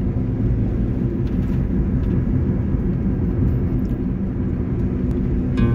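Steady low rumble of road and engine noise heard inside a moving car's cabin. Music comes in at the very end.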